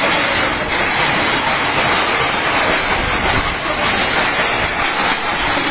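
Loose corrugated metal sheets rattling and scraping without a break as a tethered bull thrashes and pulls against them.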